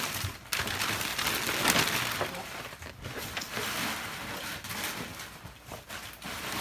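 Wrapping paper crinkling and rustling as a present is unwrapped, loudest in the first two seconds, then a cardboard gift box being handled, with scattered light clicks and scrapes.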